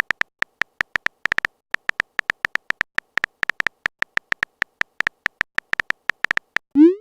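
Rapid, irregular string of short, identical high electronic beeps: a chat-app typing sound effect as message text appears. A quick rising blip comes near the end.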